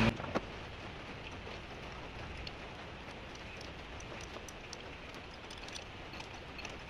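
Faint, scattered small metal clicks of a socket wrench working a spark plug loose in the engine's plug tube, over a steady hiss.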